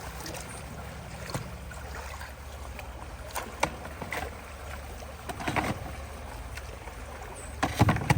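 Water running at a partly clogged culvert over a steady low rumble, with scattered knocks and splashes as debris is worked loose by hand; the loudest cluster of splashes comes near the end.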